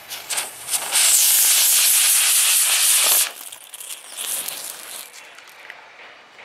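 Small fireworks strapped to the arms of a fidget spinner burning and driving it round. They sputter at first, then give a loud, steady hiss for about two seconds that cuts off sharply, followed by fading crackles as they burn out.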